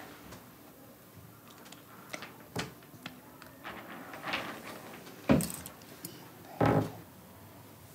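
Small clicks and taps of hands handling needle, thread and a spool of thread at a wooden table, with two louder knocks a little over a second apart in the second half.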